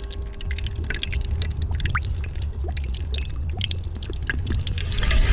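A thin stream of liquid poured from a glass bottle into a stainless steel mixing bowl of pepper sauce, with scattered small drips and splashes over a steady low rumble.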